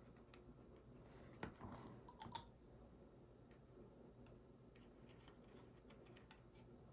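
Near silence with a few faint clicks and taps, about one and a half and two and a half seconds in, from small plastic model parts and tools being handled on a workbench.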